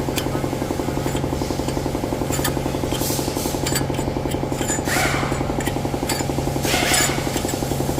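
A vehicle gearbox running with a fast, steady rattling knock over a low hum, with a few light clinks. This is the bad noise the title puts down to the gearbox's transfer shaft.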